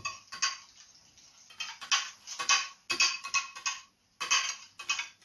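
Metal wire whisk clinking and scraping against a glass baking dish, beating eggs with chopped green onion and tomato. The strokes come in uneven bursts of quick clinks with short pauses between.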